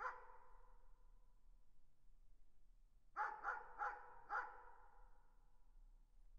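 A dog barking in the distance: one bark at the start, then four quick barks about three seconds in. Each bark trails off in a long echo.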